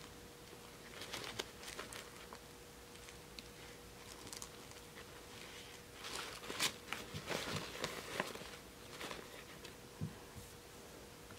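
Faint handling noise of a fashion doll being posed by hand: soft rustling of its hair and dress and small clicks, busiest about six to eight seconds in, over a faint steady hum.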